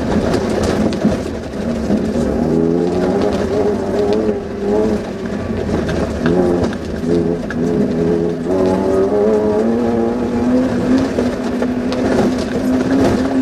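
A Suzuki Vitara's engine heard from inside the cabin on an off-road stage, pulled hard through the gears. Its pitch climbs and drops again and again as it shifts, with occasional knocks from the rough ground.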